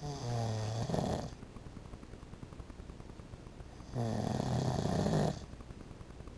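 A sleeping man snoring: two snores about four seconds apart, each a low pitched buzz lasting over a second.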